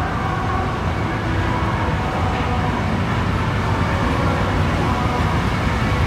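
Steady low rumble of store room ambience across a large, open retail floor, with a few faint held tones above it.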